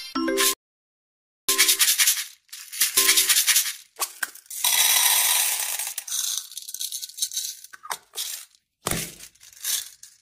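Cartoon sound effects cut one after another: short pitched blips and rattles, then a long hiss about halfway through, with crackling and two short hits near the end.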